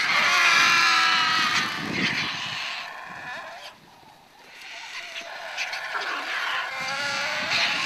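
A flock of vultures squabbling over a carcass, giving harsh squealing calls. The first bout is loudest, a quieter lull falls near the middle, and a second bout of calls follows.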